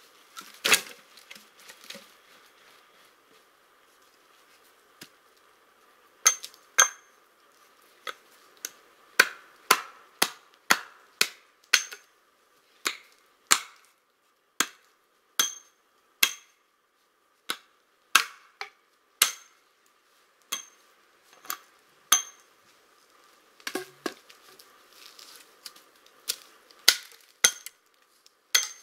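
A bundle of pine logs dropped onto the ground about a second in. After a quiet pause come repeated hatchet blows on an upright pine pole, one to two a second, each a sharp knock, many with a short high ring.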